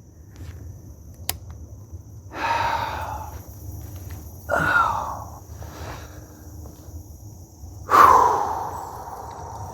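A man breathing out heavily three times, long exasperated sighs, the middle one sliding down in pitch. A faint steady high insect trill runs underneath.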